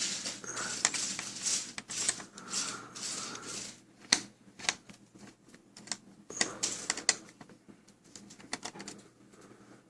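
Small screws being unscrewed by hand with a screwdriver from a laptop's screen assembly: scraping turns of the bit for the first few seconds, then scattered sharp clicks and ticks of small metal and plastic parts being handled.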